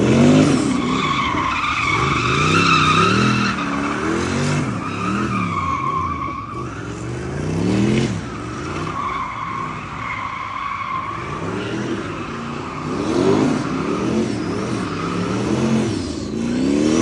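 A car drifting: its tires squeal in several long stretches while the engine revs up and down over and over.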